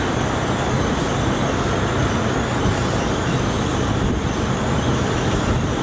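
Steady background noise, a rushing sound over a low hum, with no break or change in level.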